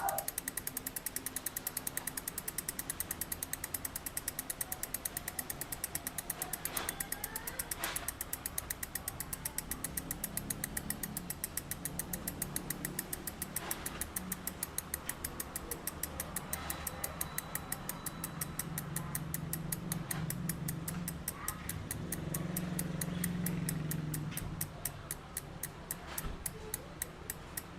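Novatech D762TSBT rear hub freewheeling, its freehub pawls clicking in a rapid, even ticking as the wheel turns without pedalling. A low hum rises under the clicking in the middle and fades again.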